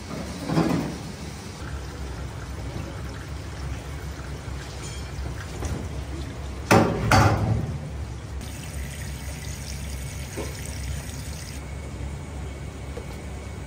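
Hot water pouring and splashing off a wire-mesh strainer as boiled monkfish pieces are lifted out and drained over a steel sink, in two loud pours, about half a second in and around seven seconds in, over a steady low hum.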